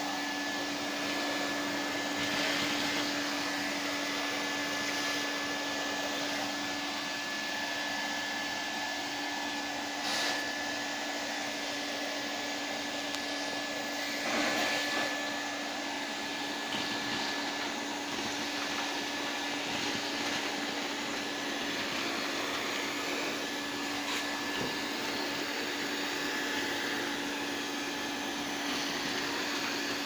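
Numatic Henry cylinder vacuum cleaner running steadily, sucking up small paper pieces from a carpet through its hose and wand: a constant rush of air with a steady hum and a high whine, briefly louder a couple of times.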